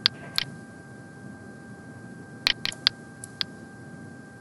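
Computer mouse clicking: two sharp clicks near the start, then four more between about two and a half and three and a half seconds in. A faint steady high tone runs underneath.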